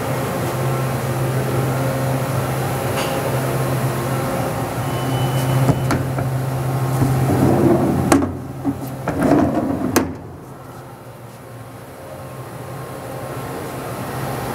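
The sliding enclosure doors of a Toyoda FA450 horizontal machining center are pulled open by hand. They rumble along their track for a couple of seconds, with sharp clacks at the start and end of the travel. This sits over a steady machinery hum that drops away about two-thirds of the way through.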